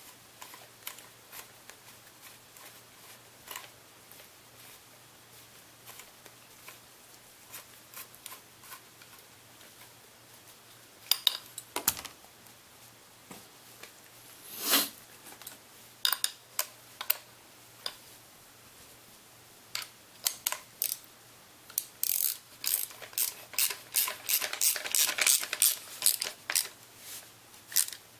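Small metallic clicks and clinks of hand tools and AR-15 parts being handled as the pistol grip screw is driven in, with a couple of louder knocks midway and a quick run of clicks near the end.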